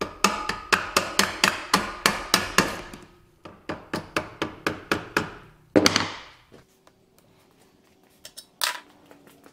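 Hammer striking a screwdriver used as a punch, driving the top engine-mount bolt out of a pit-bike-style engine. The blows come in two quick runs of about five a second, with a short pause about three seconds in, and end with one heavier blow near six seconds.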